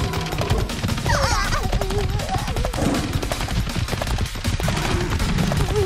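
A dense, rapid crackling clatter of cartoon sound effects runs throughout. High, warbling animal-like calls come about a second in and again at the end.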